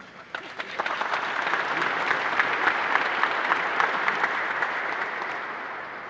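Audience applauding. The clapping builds up within the first second, holds steady, and tapers off near the end.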